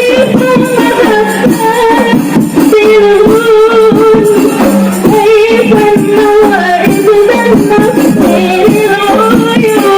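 Qasidah rebana music: a singer's melody with long held notes over rebana frame drums beating a steady rhythm.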